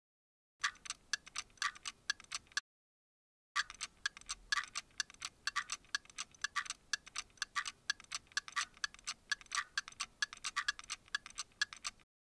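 Clock or timer ticking fast, several high, sharp ticks a second; it stops for about a second early on, then resumes and cuts off just before the end.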